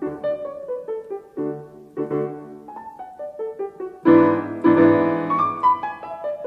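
Background piano music, a run of single notes with a louder burst of chords about four seconds in.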